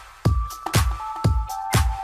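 Background electronic dance music with a steady four-on-the-floor kick drum, about two beats a second, under held synth notes.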